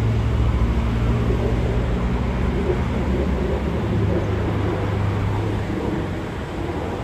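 Steady low motor hum over the even background noise of the city, easing a little near the end.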